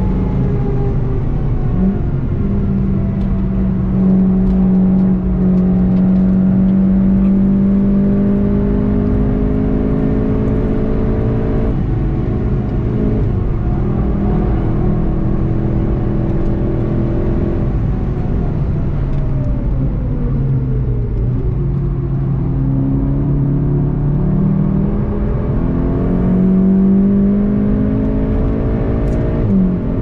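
VW Golf 7 GTI TCR's turbocharged 2.0-litre four-cylinder engine under hard driving, heard from inside the cabin. The engine note is held high and creeps up at first, dips about twelve seconds in, sinks low as the car slows from about eighteen seconds in, then climbs again in steps near the end.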